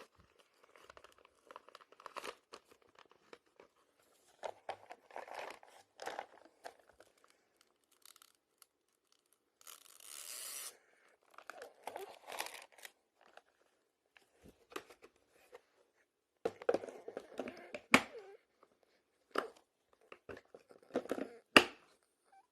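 Full vacuum cleaner bags being pulled out and handled: paper rustling and crinkling in irregular bouts, with several sharp clicks, the loudest about three-quarters of the way through and again near the end.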